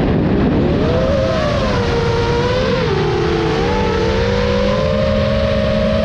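FPV quadcopter's brushless motors and propellers whining with a rushing of air, the pitch dipping about three seconds in and then slowly climbing as the throttle changes. Heard close up from the drone's onboard camera.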